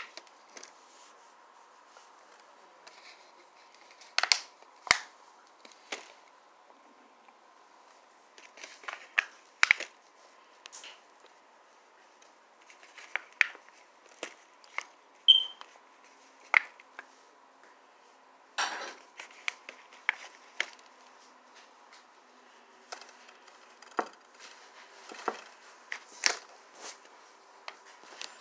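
Scattered light clicks, taps and crinkles from hands handling food and packaging on a plate while putting shredded cheese on small pizzas. A faint steady high-pitched hum runs underneath.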